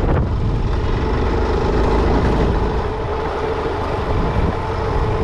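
Honda Falcon 400 motorcycle's single-cylinder four-stroke engine running steadily while ridden, with no change in pitch.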